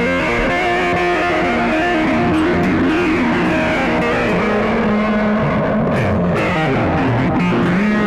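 Electric guitar played solo, held notes mixed with notes that bend in pitch.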